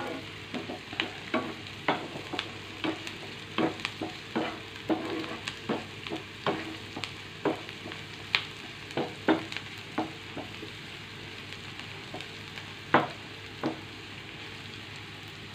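Chopped onions frying in oil in a nonstick pan with a soft, steady sizzle, while a wooden spatula stirs them, tapping and scraping irregularly against the pan. The taps thin out over the last few seconds.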